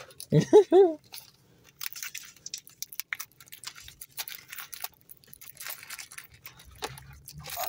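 A brief vocal sound, then several seconds of light, irregular crackling and clicking as a foil trading-card booster pack and its cards are handled.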